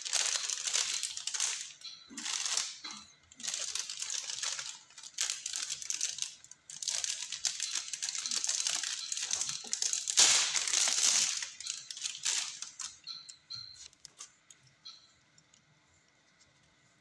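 Plastic packaging of a blood transfusion set crinkling in repeated bursts as gloved hands handle it and open it, loudest about ten seconds in. For the last few seconds it is much quieter, with a few small clicks from the handled set.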